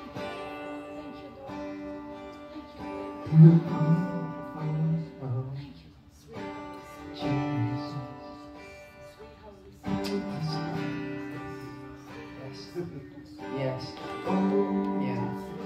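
Slow worship music on acoustic guitar: chords strummed and left to ring, with a new chord every three or four seconds.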